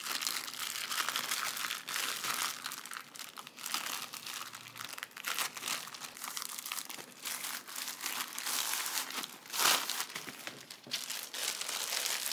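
Clear plastic wrapping crinkling and crackling as hands work it off a rolled diamond-painting canvas, with a louder crackle near the end.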